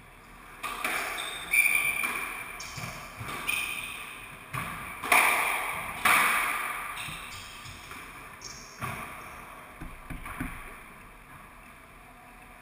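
Squash rally: the ball cracks off rackets and the court walls in a string of sharp, echoing hits every half second to second, mixed with brief squeaks of court shoes on the wooden floor. The hits stop about ten seconds in as the rally ends.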